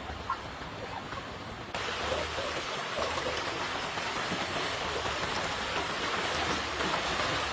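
Steady rain falling, a dense hiss that gets louder and fuller about two seconds in.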